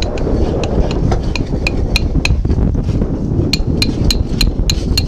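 Hammer tapping a metal tool against a sailboat's saildrive leg: sharp, ringing metallic taps, about three a second, in two runs with a short pause around the middle.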